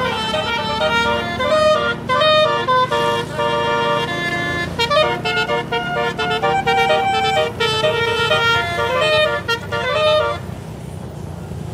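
Tour bus basuri telolet horn, a set of electric multi-note air horns, playing a quick tune of changing notes over a steady low vehicle rumble. The horn stops about ten seconds in, leaving only the rumble and road noise.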